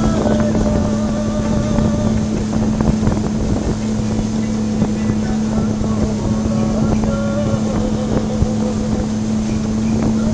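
Speedboat engine running steadily at speed, a constant low drone, with wind rushing past.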